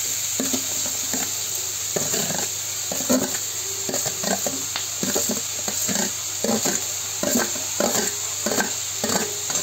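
A perforated steel skimmer scrapes and knocks mashed boiled potato out of a steel bowl into a kadai, metal on metal about twice a second, over the steady sizzle of green peas frying in mustard oil.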